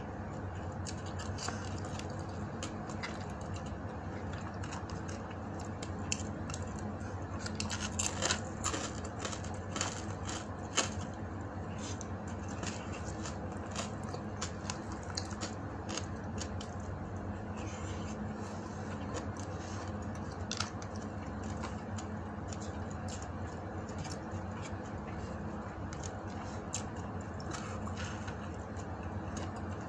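Eating by hand: scattered small clicks and scrapes as fingers pick at fish and rice on a wooden board, busiest about eight to eleven seconds in, over a steady low hum.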